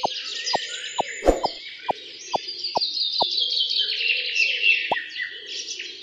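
Steady birdsong ambience, busy chirping and twittering, with short cartoon-style plop sound effects over it, about two a second for the first three seconds and once more near the end. A louder thud comes a little over a second in.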